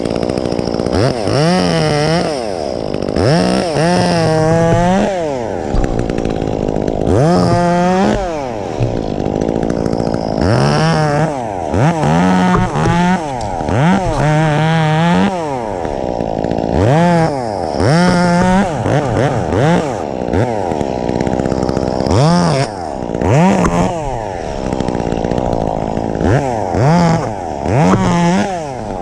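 Two-stroke chainsaw running and revved again and again, its engine note rising to full throttle and dropping back about every two seconds as short cuts are made.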